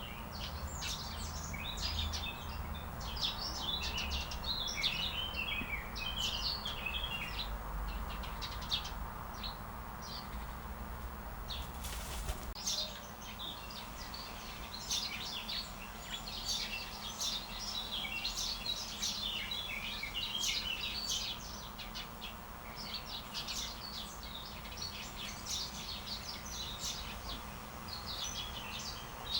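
Several small birds chirping and trilling in quick, overlapping phrases, with a low rumble underneath during the first half.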